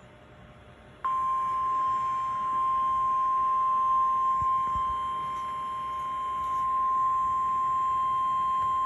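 NOAA Weather Radio warning alarm tone, a single steady high tone of about 1050 Hz, played through a weather radio's speaker. It comes on abruptly about a second in after a brief pause and holds unchanged, signalling that a warning broadcast follows.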